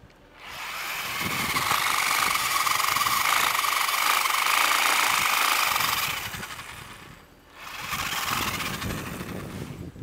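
Ryobi battery-powered pole saw cutting through a tree limb, its chain whining steadily for about six seconds. It stops briefly around seven seconds in, then runs again a little more quietly.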